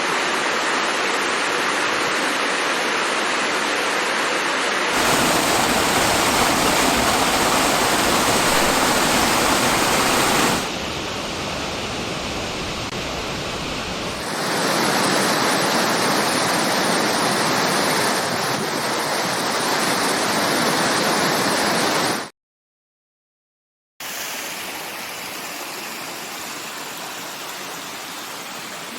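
Waterfall water rushing and splashing in a steady, dense roar. The sound changes abruptly several times as the footage cuts between different falls, drops out entirely for about two seconds near the end, then comes back quieter.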